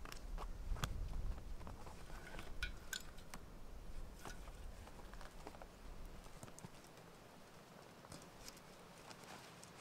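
Camping gear being handled in a canvas backpack: rustling fabric with scattered small clicks and knocks, busiest in the first half, over a low rumble that fades out about six seconds in.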